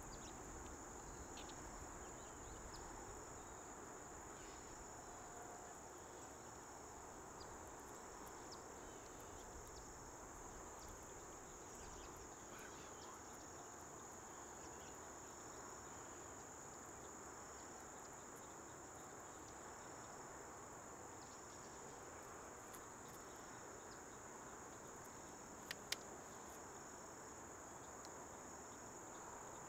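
A steady, high-pitched insect chorus over a faint hiss of outdoor air. Near the end come two sharp clicks in quick succession.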